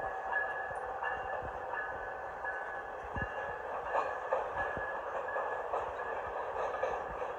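Freight train's cars rolling past on steel wheels: a steady rolling rumble with a thin high squeal that comes and goes and scattered clicks.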